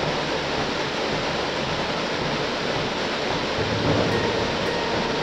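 Muddy floodwater from a cloudburst upslope pouring down a rock face onto a road and rushing across it: a steady, even rush of water.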